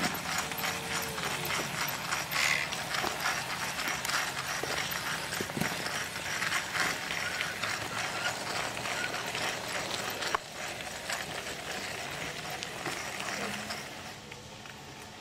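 G scale model rack-and-pinion steam locomotive running past close by, with a rapid ratchet-like clatter of its gearing and pinion meshing with the toothed rack rail. A sharp click about ten seconds in, after which the clatter grows quieter and fades as the train moves away near the end.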